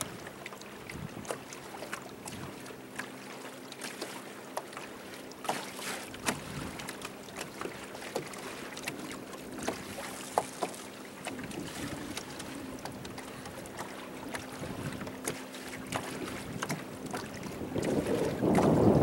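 Water lapping and dripping against a small boat's hull as it moves slowly, many small sharp splashes over a steady wash, with a faint steady low hum underneath. Near the end a louder gust of wind buffets the microphone.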